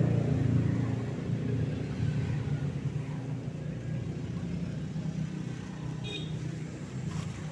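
Nearby motor vehicle engine running with a steady low rumble that slowly fades away, with a brief high-pitched tone about six seconds in.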